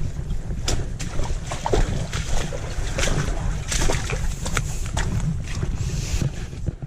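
Hiker's footsteps, scrapes and knocks while scrambling along a rocky forest stream, with water running and a constant low rumble on the microphone.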